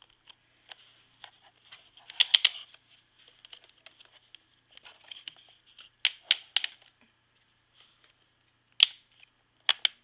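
Sharp plastic clicks and knocks from a hand handling a Honeywell 8-inch table fan's grille and housing while the fan is switched off, coming in small clusters of two or three.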